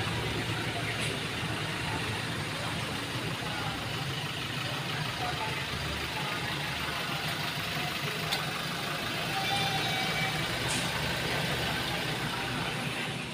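Steady low engine-like rumble under an even hiss, with a few faint short tones and light ticks above it.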